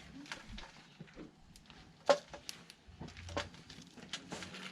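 Small wood fire crackling with irregular sharp pops, one louder pop about two seconds in, as freshly added fatwood kindling catches.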